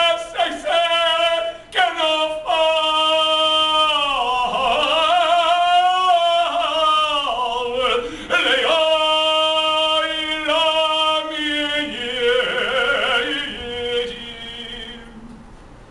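A man singing a slow solo chant, with long held notes and wavering ornaments on some of them; the voice stops about a second before the end.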